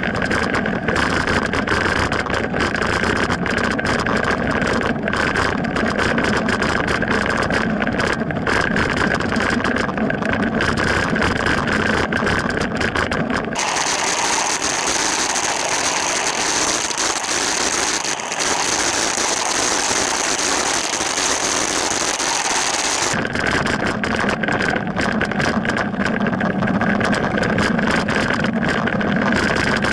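Steady loud road and wind noise from a camera travelling along a street, with car engine sound mixed in. The character of the noise changes abruptly about 13 seconds in and changes back about 23 seconds in.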